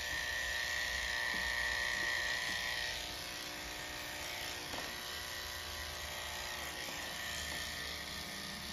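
Wahl electric pet clipper with a #10 blade running steadily as it shaves matted hair from between a dog's paw pads: a steady whine, a little louder for the first three seconds or so.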